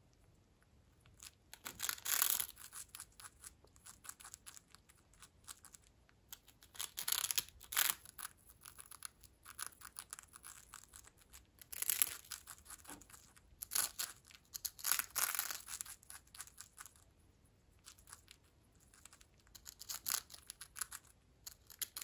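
A Senegal parrot biting and crunching a prawn cracker with its beak: crisp, crackling bites that come in louder bouts every few seconds, with quieter nibbling between.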